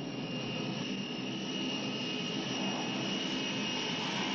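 Small business jet's turbine engines running, a steady high whine over a broad rushing noise that slowly grows louder.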